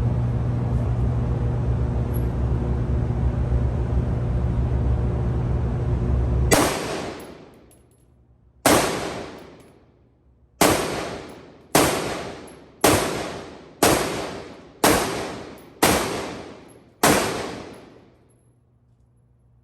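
Springfield Armory Saint Victor AR-15 rifle firing nine single shots about a second apart, each with a long reverberant tail. A steady low hum runs before the first shot and is gone once the shooting starts.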